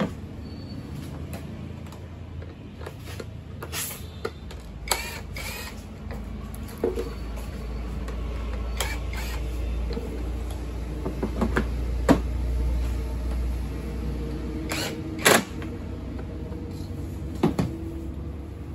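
Scattered clicks and knocks of hard plastic parts being handled and fitted onto a children's electric ride-on motorbike, over a steady low hum.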